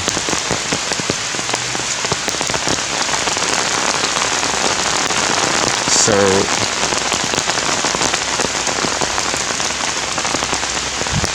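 Heavy rain falling steadily, a dense hiss full of separate sharp drop hits.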